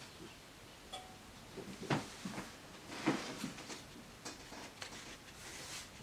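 Quiet room tone broken by a few soft knocks and light handling noises, the loudest about two and three seconds in.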